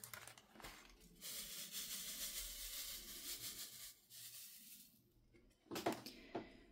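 Square resin diamond-painting drills rattling and sliding in a plastic sorting tray as it is shaken to line them up in its grooves: a soft, steady hiss for about three seconds. A few brief rustles follow near the end.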